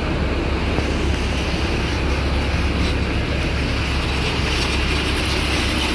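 A TransJakarta city bus's engine running close by, a steady low rumble under general street noise.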